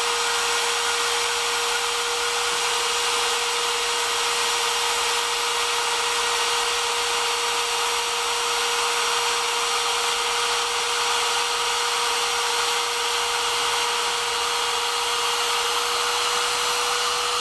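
CNC router spindle running steadily during a test cut: a constant mid-pitched whine over a steady hiss.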